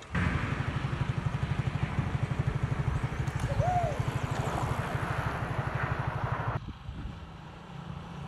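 Motor vehicle engine running at a steady speed with a fast, even pulsing, under wind noise. It cuts off suddenly about six and a half seconds in, leaving a quieter hum.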